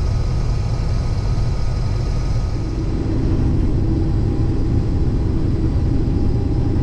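Case IH 2388 combine running steadily while harvesting soybeans: a constant low rumble of engine and threshing machinery, with a faint steady hum joining in about two and a half seconds in.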